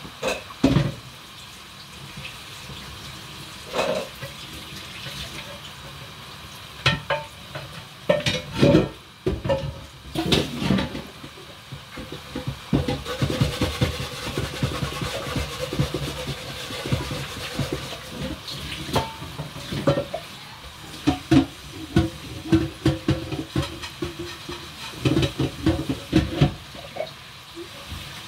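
Kitchen clatter: utensils and dishes knocking and rattling at the counter over steady background noise, with a run of quick rattling in the middle.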